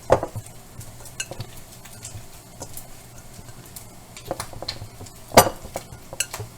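Kitchen clatter: dishes and utensils clinking and knocking at irregular intervals, with the loudest knocks just after the start and about five seconds in. A steady low hum from the stove's exhaust fan runs underneath.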